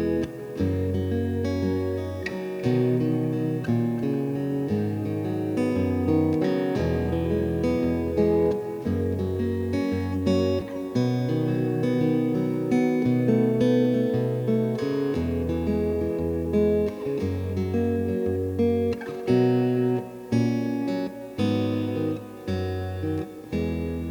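Guitar played through a Wampler Ethereal reverb and delay pedal: picked low bass notes about a second each under ringing chords, the upper notes running on and overlapping one another.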